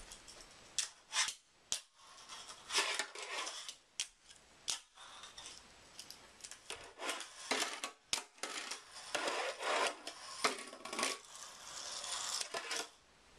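Fingerboard being ridden: sharp clacks of the small deck popping and landing, with short stretches of its wheels rolling and its trucks scraping along a metal rail and a glass tabletop, again and again.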